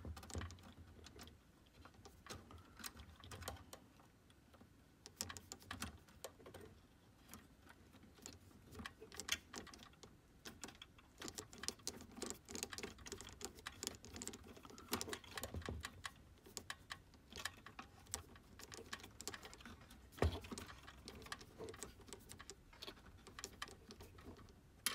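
Faint, irregular small clicks and taps of a nut driver turning a screw into the sheet-metal solenoid mount of a Kodak Carousel 850H slide projector, with light handling of the metal parts.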